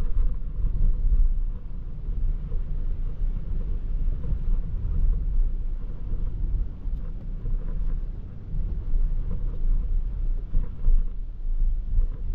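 Toyota Prius α driving, a steady low rumble of road and wind noise with no clear engine note.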